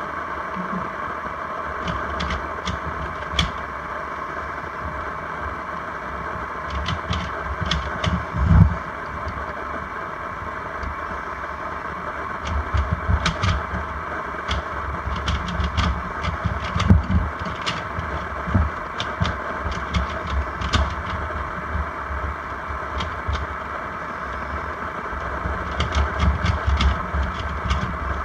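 Clusters of quick clicks from a stickerless Gans III 3x3x3 speed cube being turned during a solve, with low thuds, over a steady hum, picked up by a camera sitting underwater in a tub of water.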